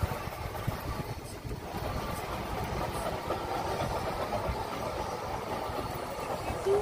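Wind buffeting the microphone in uneven low gusts over a steady rumble, with a short high tone just before the end.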